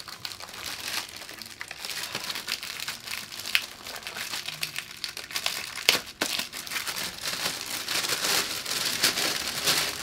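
Packaging wrap crinkling and rustling as TV parts are handled and unwrapped, with a couple of sharper clicks about three and a half and six seconds in.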